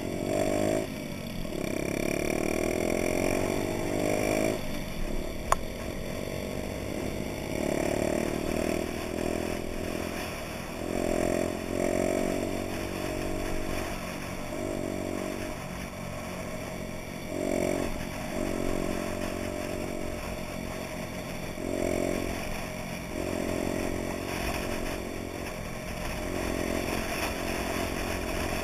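Honda Dax moped's four-stroke single-cylinder engine running under way, its note climbing and then dropping every few seconds as the throttle is opened and eased off through the gears. One sharp click about five and a half seconds in.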